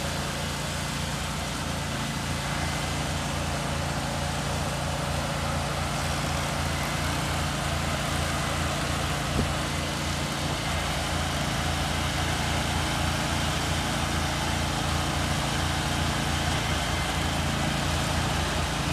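An engine running steadily at a constant idle, a low even hum with no change in speed. A faint click about nine seconds in.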